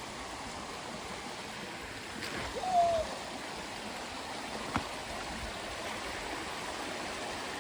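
Steady rush of flowing stream water. About three seconds in a brief sliding call stands out over it, and a sharp click follows near the five-second mark.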